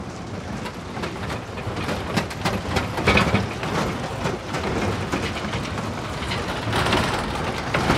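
Busy street-market crowd noise: a loud, dense jumble of indistinct voices, footsteps and bustle, with a low rumble on the microphone as the camera is carried through the crowd.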